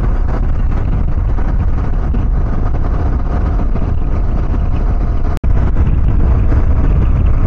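KTM 390 Adventure's single-cylinder engine running as the motorcycle is ridden, under a dense low rumble of road and wind noise. The sound cuts out for an instant about five seconds in.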